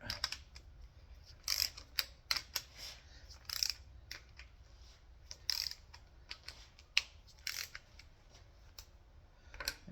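Scattered metallic clicks and short clattering bursts of hand tools and parts during work on the other side of a small-block Chrysler 318 V8, irregularly spaced.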